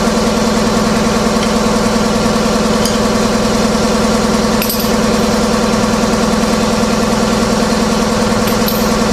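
A motor running steadily with a loud, even drone.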